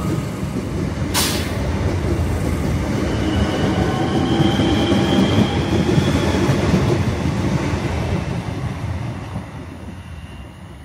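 DART electric multiple-unit train pulling out of the platform, with wheel-on-rail rumble and a faint motor whine that climbs a little in pitch. There is a sharp click about a second in, and the sound fades in the last few seconds as the train draws away.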